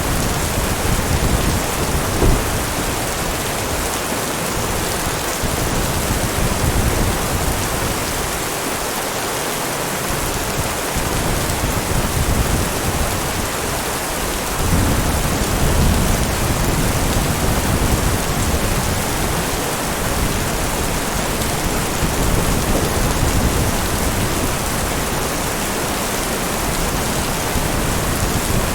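Heavy rain falling steadily, with low rolls of thunder swelling and fading several times; the strongest roll starts about halfway through.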